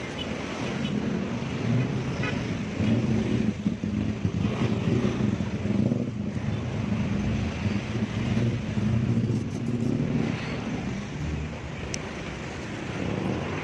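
A motor vehicle engine running, its low hum rising and falling in level.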